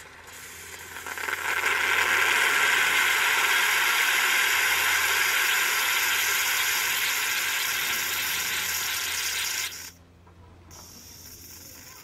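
Stovetop moka pot on a gas camping-stove burner hissing and sputtering loudly as the coffee comes through and steam blows out of the top. The sound builds over about two seconds, holds steady and cuts off suddenly near the end.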